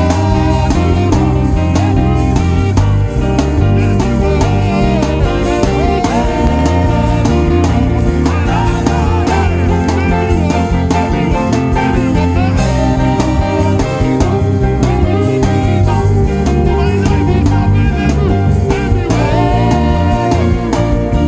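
Band music with a drum kit keeping a steady beat under bass and melodic instruments.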